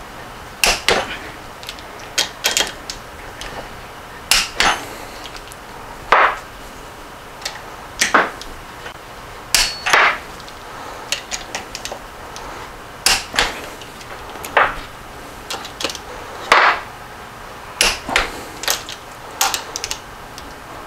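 Torque wrench and socket on the 14 mm connecting-rod nuts of a Porsche 912 crankshaft: sharp metal clicks and clinks every second or two, sometimes in pairs, as each nut is rechecked to torque.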